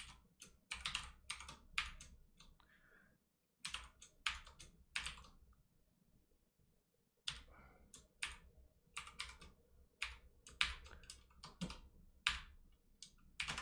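Typing on a computer keyboard: separate keystrokes in short runs, broken by two brief pauses.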